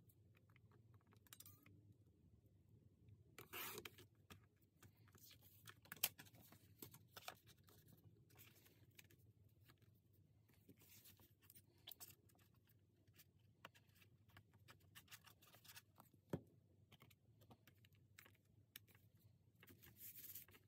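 Faint sounds of paper being handled at a craft table: a short scrape about three and a half seconds in, then scattered rustles, soft taps and a couple of sharper clicks as paper is pressed and smoothed down by hand.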